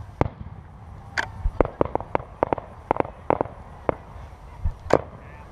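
Aerial fireworks going off: a quick run of sharp bangs and pops, about a dozen, most of them packed between one and four seconds in, with a last loud bang near the end.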